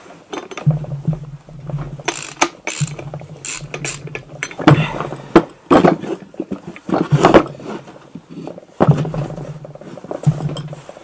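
Ratchet wrench clicking and metal tools knocking against the aluminium case of a moped engine being taken apart, in short irregular spurts, with a low steady hum in stretches.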